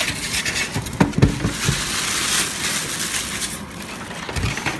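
Packaging being handled during an unboxing: a dense rustling and crinkling that fades out about three and a half seconds in, with a couple of sharp knocks about a second in and a dull thud near the end.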